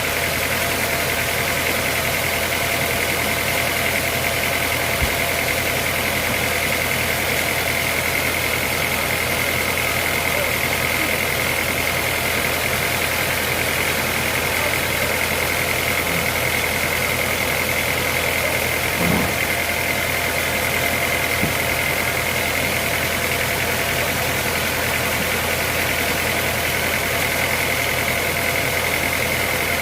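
Sawmill machinery running steadily: a constant engine-like hum with a high, even whine over it. There is a single soft knock about two-thirds of the way through.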